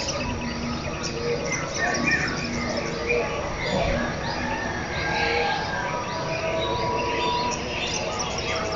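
Many birds chirping and twittering at once in a morning chorus, with a few longer held tones underneath.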